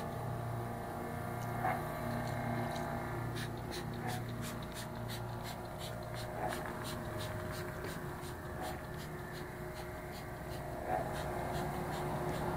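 Hand trigger spray bottle squirting degreaser over and over, a quick hiss with each pull of the trigger, over a steady low hum.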